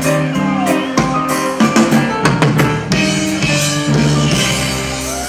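Live reggae band playing, with drum kit, electric guitars, bass and keyboards; drum hits cluster around the middle, and the loudness eases off a little toward the end.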